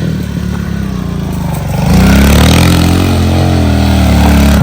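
A 24-valve Cummins turbo-diesel with compound turbos is running under load. About two seconds in it gets louder and climbs in pitch as the truck accelerates.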